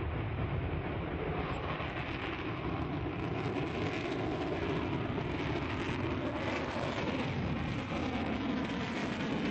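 Safir launch rocket's engine firing at liftoff: a steady, deep rushing noise with no breaks as the rocket climbs away.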